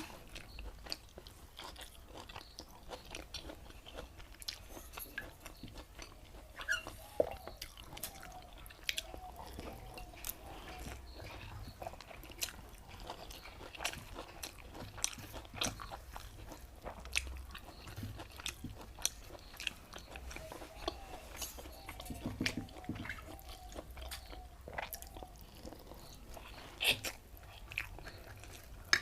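A person eating pakhala (water-soaked rice) with saag greens and raw onion close to the microphone: steady wet chewing with many short, sharp crunching bites.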